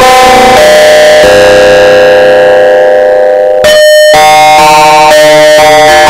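Loud, distorted synthesizer alarm music: a melody of steady tones stepping in pitch about every half second, with one long held note that breaks into a harsh buzzy tone a little past halfway, then stepping notes again. It is an emergency-alert-style alarm.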